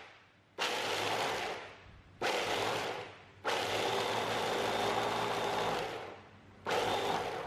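Small electric food chopper grinding roasted peanuts coarsely, run in four pulses, each starting suddenly and tailing off as the motor stops. The third pulse is the longest, running over two seconds.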